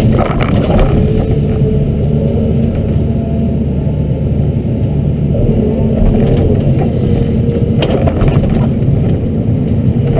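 Hyundai R210 LC-7 excavator's diesel engine running steadily under working load, with brief crackles near the start and again near the end from willows being crushed and snapped by the rake and thumb.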